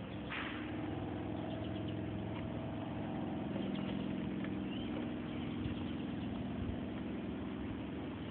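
A motor running steadily, a low even hum, with a short scrape about half a second in.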